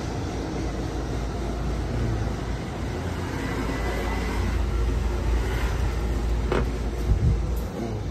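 Steady city street traffic rumble, with a couple of sharp knocks near the end.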